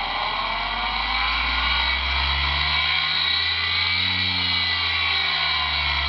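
Electric motor driven by a ZW-BT1 variable-frequency drive, running fast with a steady whine. Its pitch eases down as the drive lowers the output frequency.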